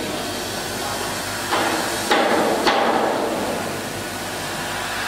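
Laser cutting machine cutting steel sheet: a steady hiss from the cutting head, with three sudden louder bursts of hiss a little over half a second apart about two seconds in, fading away within about a second.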